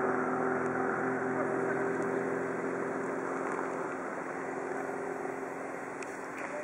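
A motor engine droning steadily with a few fixed tones under a rushing noise, slowly fading away.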